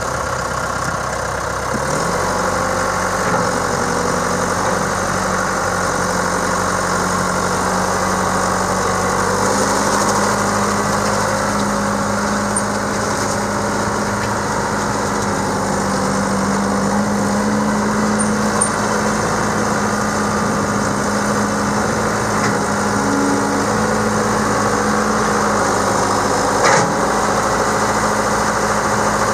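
John Deere 6310 tractor's 4.5-litre four-cylinder diesel engine idling steadily, its pitch rising slightly about ten seconds in. A single sharp knock near the end.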